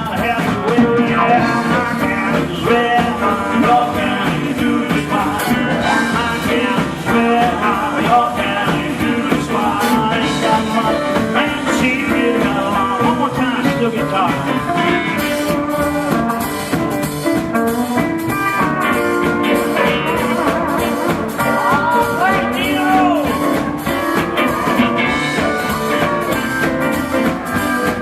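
A live rock and roll band playing an uptempo tune: guitar and other pitched parts over a steady, evenly spaced drum beat.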